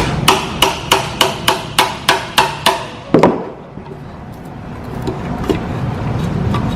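A quick run of about ten evenly spaced hammer strikes on metal, roughly three a second, each with a short ring. One duller knock follows after about three seconds, then a few faint ticks.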